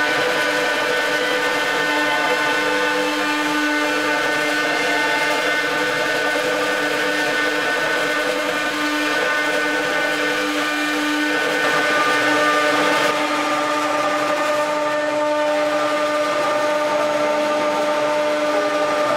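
CNC router's high-speed spindle running steadily with a whine of several held tones over a rushing hiss as its V-bit carves into the plaque. The pitch of the whine shifts a little about two-thirds of the way through.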